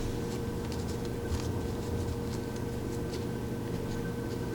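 Faint light ticks and rustles as small plastic and fabric pouches from a 1/6 scale figure are handled, over a steady room hum.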